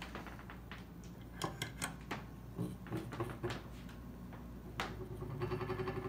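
A few scattered clicks and knocks, then about five seconds in the antique 12-inch Diehl table fan's electric motor starts and runs with a steady hum and a fast, even rattle, the sound of bearings that are a little worn.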